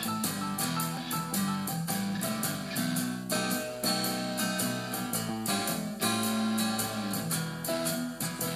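Guitar-led music with strummed and picked guitar over a steady beat.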